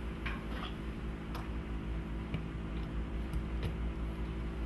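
Scattered light plastic clicks as an AC line separator is handled and pushed into a wall outlet, over a steady low hum.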